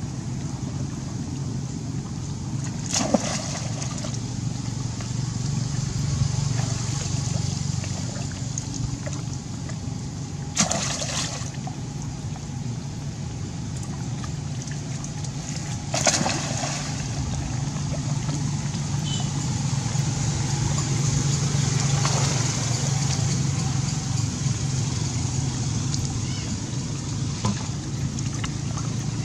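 Lake water sloshing and splashing as monkeys swim and clamber around a half-submerged log, with three sharper splashes and a steady low hum underneath; a few faint high chirps come near the end.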